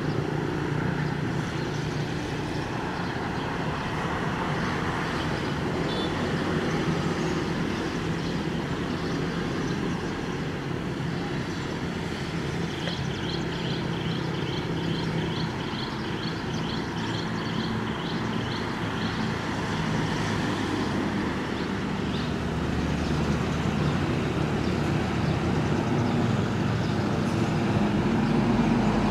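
Steady hum of engines idling, with a run of quick, high, evenly spaced chirps for several seconds midway.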